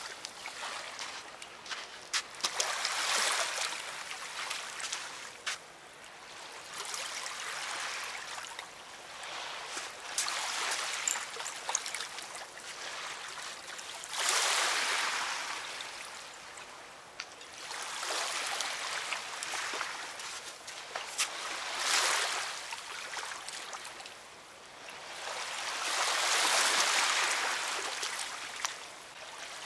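River water washing and trickling at the bank, rising and falling in slow surges every few seconds.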